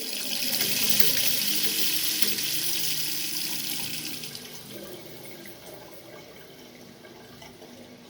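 Water running from a mixing tap through a newly fitted aerator into the sink, an even aerated stream with a soft hiss. It gets quieter about four seconds in.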